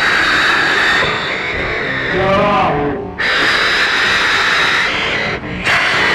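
Loud, harsh, distorted emergency-alert audio, a dense noisy sound with a steady high edge. It breaks off briefly about three seconds in and again near the end.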